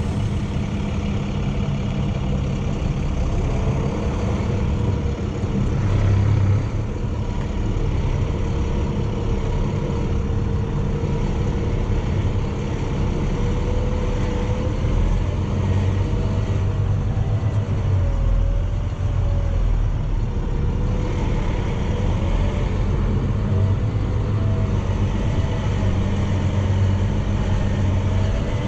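A medium-duty wrecker's engine running under load as the truck drives slowly along a dirt track, pulling a heavily loaded work truck behind it, heard from inside the cab. The sound stays steady, with a faint tone that drifts up and down.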